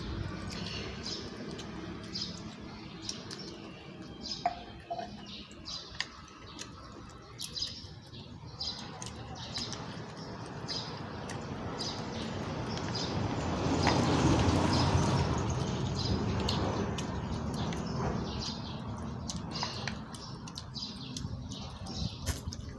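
Small birds chirping in short, high calls repeated all through, with a broad rush of noise that swells up and fades away around the middle.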